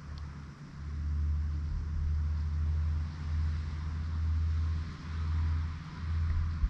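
Low rumble on the microphone, surging and dropping every second or two, over a faint steady outdoor hiss.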